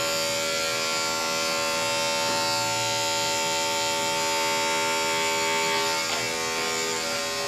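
Corded electric dog grooming clippers running steadily as they shear the dog's coat, a constant buzzing hum, switched off at the very end.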